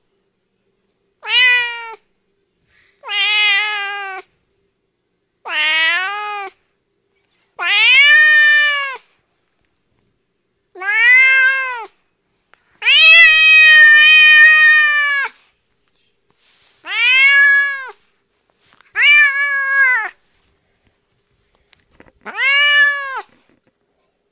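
Domestic cat meowing: nine separate drawn-out meows a second or two apart, each rising and then falling in pitch. The longest, just past the middle, lasts about two and a half seconds.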